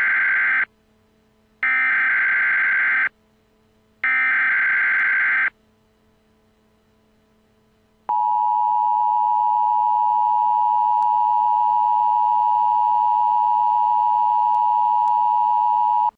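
Emergency Alert System broadcast tones: three short bursts of the digital data header, each about a second and a half with short gaps between, then after a pause a steady two-tone attention signal lasting about eight seconds that cuts off abruptly.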